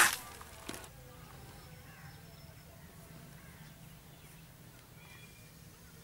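A Diana 56 Target Hunter spring-piston air rifle firing once: a sharp crack with a short ringing tail, followed about 0.7 seconds later by a much fainter knock.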